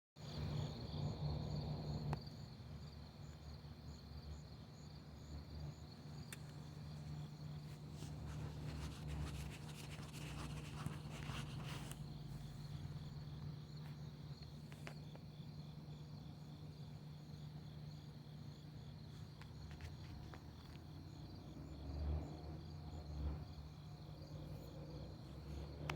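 Crickets chirping at night in a steady, rapid pulse over a low steady hum, with a brief rustling noise around ten seconds in.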